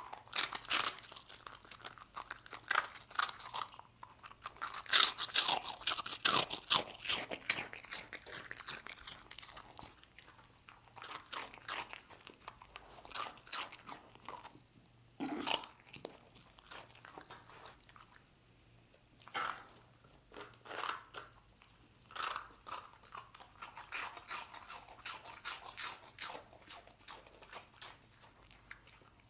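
A dog crunching and chewing hard, dry toasted-bread rusks close to the microphone: a run of sharp crunches, busiest in the first several seconds, then bites separated by short pauses.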